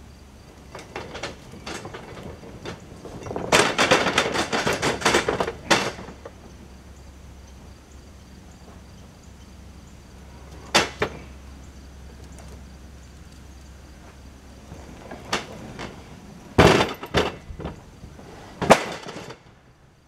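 Wooden knocking and clatter of sawmill slab wood coming down a steel roller conveyor onto a slab pile. A rattling run of knocks comes a few seconds in, then a single knock, then several heavy knocks near the end as a bark-covered slab arrives.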